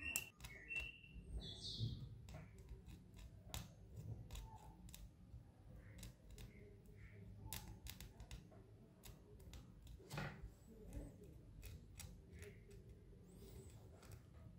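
Wooden toothpick scraping and picking dirt out of the engraved pattern of a small antique brass vase: a faint, irregular run of short scratches and ticks.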